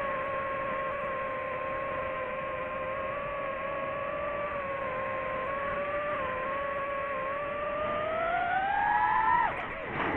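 DJI FPV drone's motors and propellers whining steadily; the whine rises in pitch about eight seconds in, then dips sharply near the end.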